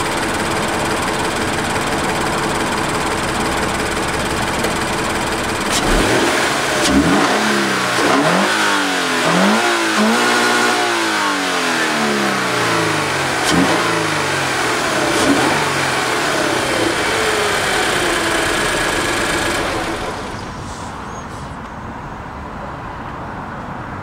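Toyota GT86's 2.0-litre flat-four boxer engine, breathing through a K&N drop-in air filter, idling steadily, then revved in a series of quick blips from about six seconds in. It settles back to a slightly quieter idle near the end.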